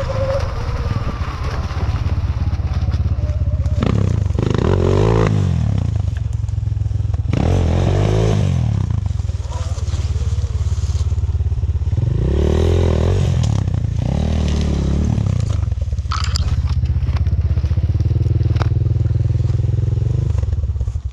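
A vehicle engine running under load on a rough forest path, its revs rising and falling four times, with a few sharp knocks and clatters.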